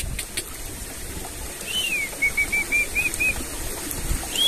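A small bird calling: a slurred, falling whistle, then a quick run of about six short whistled notes. Another arched whistle comes near the end. A steady low rumble of outdoor background noise runs underneath.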